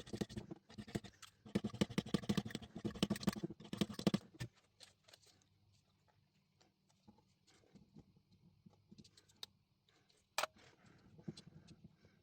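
Rapid scratchy scraping strokes for about four seconds, then a faint steady low hum with small ticks and one sharp click about ten seconds in.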